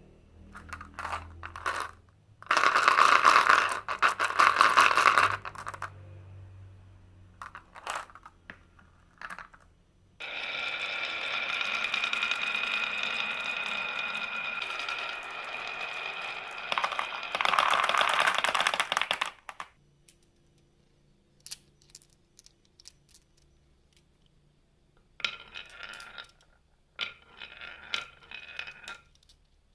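Marbles rolling and clattering down a marble run. There are loud rattling bursts early on, then a long rolling run with a steady ringing tone lasting several seconds mid-way, and a series of quick ringing clicks near the end.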